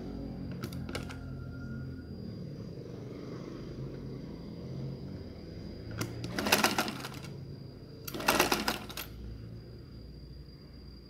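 Straight-stitch sewing machine stitching in two short runs, about six and eight seconds in, each about a second long, a rapid clatter of the needle going up and down.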